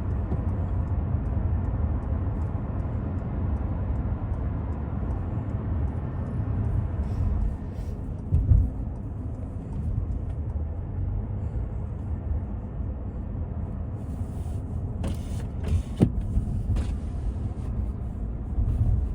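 Steady low rumble of a car on the move, road and engine noise, with a couple of short knocks partway through.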